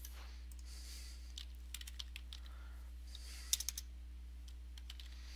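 Computer keyboard typing: a few scattered keystrokes, then a quick run of about four just past the middle, faint over a steady low electrical hum.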